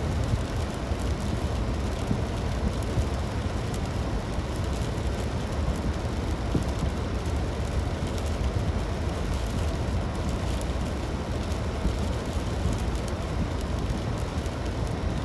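Steady low rumble of a car driving on the highway, with faint scattered ticks over it.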